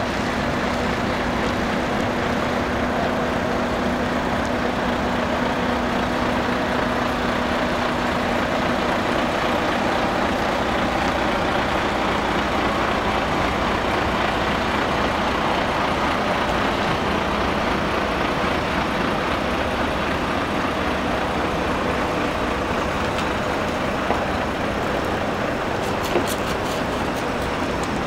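Heavy crane truck's diesel engine running steadily, with traffic and road noise around it. A low steady hum runs through the first several seconds, and a few sharp clicks come near the end.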